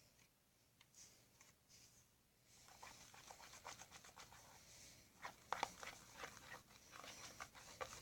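Fluffy slime being mixed, a run of faint sticky clicks and squelches that starts a few seconds in.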